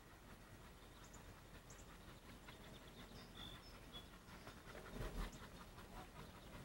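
Near silence, with a few faint bird chirps about three to four seconds in and a brief low thump about five seconds in.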